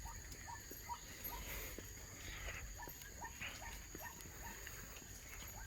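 Faint forest ambience: a bird's short, slightly falling note repeated evenly about two to three times a second, over a steady high-pitched insect drone.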